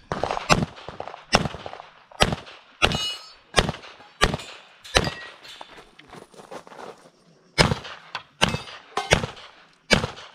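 Pistol shots fired in a string, about a dozen of them roughly two-thirds of a second apart, with a pause of about a second and a half in the middle while the shooter moves. A short metallic ring follows a few of the shots.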